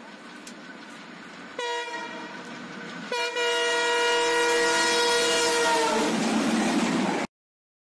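Multi-tone train horn, part of a channel intro: a short blast, then a long blast of about three seconds whose pitch sags as it dies away. A rushing rumble follows and cuts off abruptly.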